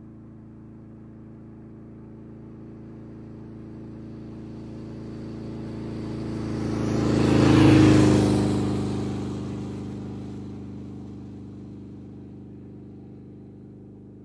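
A motorcycle engine running steadily as it comes closer and passes, swelling to a loud peak about eight seconds in and then fading away.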